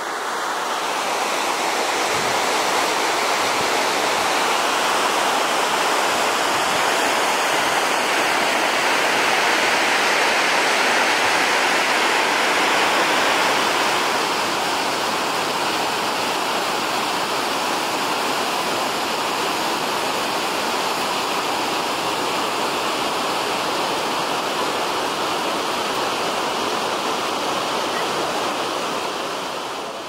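Lower Falls of the Yellowstone River: a steady, loud rush of falling water. Its tone shifts slightly about halfway through.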